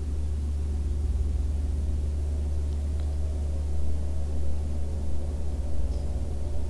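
Steady low rumble, with a faint tick or two above it.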